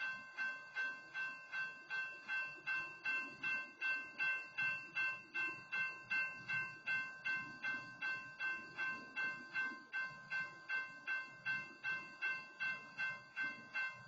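Railroad grade-crossing warning bell ringing on and on in even strikes, about two and a half a second, each with a bright metallic ring; the freight train standing in the crossing keeps the crossing warning active.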